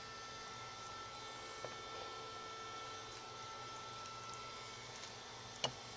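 Quiet room tone with a steady electrical hum, broken by one short, sharp click near the end.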